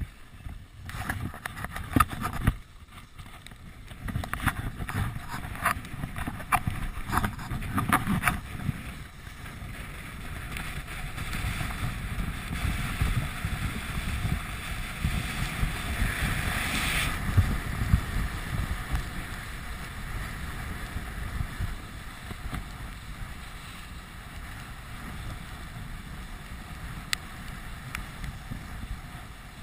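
Skis sliding and scraping over packed snow on a downhill run, with wind rushing across the camera's microphone. Sharp scrapes and knocks come in the first eight seconds; a louder rush then builds and cuts off suddenly about seventeen seconds in, settling to a quieter hiss.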